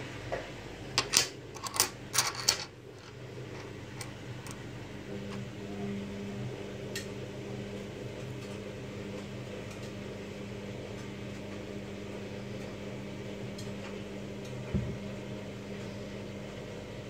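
A quick run of sharp clicks and knocks in the first few seconds, then a steady low mechanical hum with a faint held tone, and a single knock near the end.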